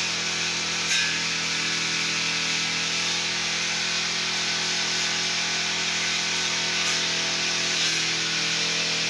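Four-stroke brush cutter engine running steadily while cutting grass.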